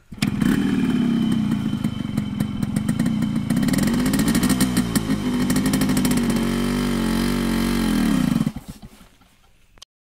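Yamaha RX 100's single-cylinder two-stroke engine catching at once on the kickstart and running with a rise and fall of revs midway, then stopping suddenly about eight and a half seconds in.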